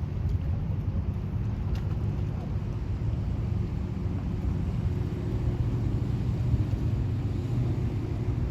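The bulk carrier Federal Ruhr's engine, a steady low rumble with a faint hum as the ship passes.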